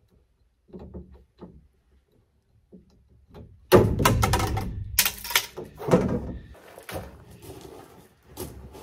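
Handling noise from a length of PEX A water supply pipe being pulled and worked into place: a few light knocks, then from almost four seconds in about three seconds of loud scraping and knocking, fading to softer rustling and taps.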